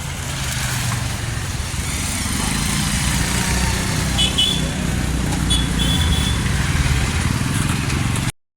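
A motor vehicle's engine running steadily with a noise of rushing air and road, and a few short high chirps, until it cuts off abruptly near the end.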